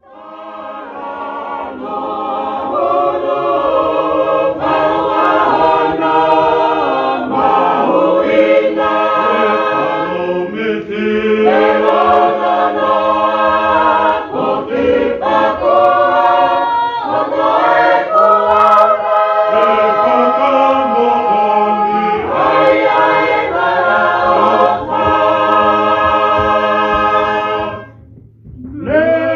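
A church choir singing a hymn a cappella in long held phrases. It fades in at the start and drops away briefly near the end before the singing resumes.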